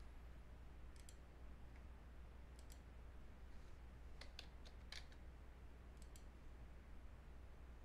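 Faint computer mouse clicks and keystrokes, mostly in quick pairs, with a brief run of keystrokes about halfway through, over a low steady hum.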